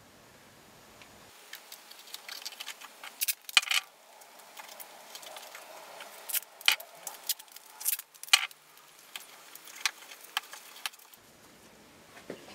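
Small wooden box parts and taped popsicle-stick spacers being handled on a wooden workbench: a series of sharp clicks and light knocks as pieces are picked up, tapped together and set down, with a faint rustle of masking tape between them.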